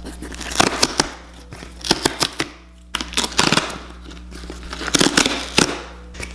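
Hands opening a cardboard shipping box: the flaps and lid are scraped, rustled and lightly knocked in four bursts of handling about a second apart.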